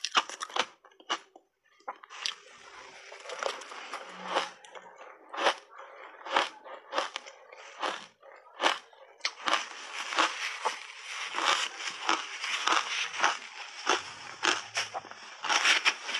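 Close-miked crunching and chewing of matcha-powder-coated shaved ice: sharp, irregular crunches about once or twice a second over a steady grainy crackle of crushed ice in the mouth.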